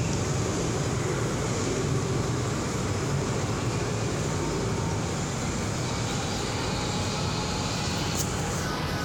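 Steady, even rumbling background noise in a large indoor hall, with no distinct events apart from a brief click near the end.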